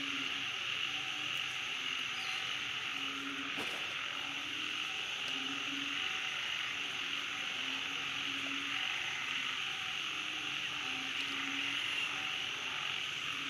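Outdoor wildlife ambience: a steady high insect drone, with short low calls repeating every second or so.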